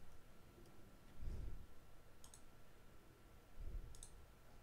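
Faint computer mouse clicks, a pair about two seconds in and another near the end, with a couple of soft low thumps between them. A faint steady high tone runs underneath.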